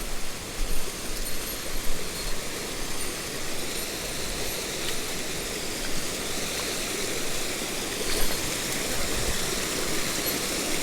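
Mountain stream running: a steady rush of water, with a few louder bumps in the first two seconds.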